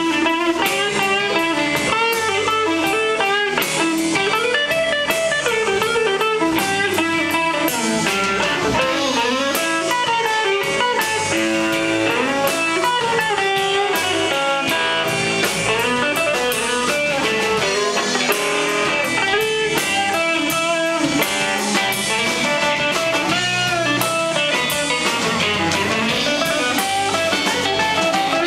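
Live blues band playing: an archtop electric guitar plays lead lines with bent notes over drums and bass.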